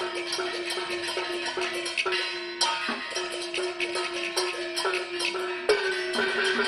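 Traditional Chinese drum-and-gong percussion band playing a fast, steady beat of ringing metal strikes over drumming. Heavier gong strokes come about two and a half and nearly six seconds in, their pitch bending as they ring.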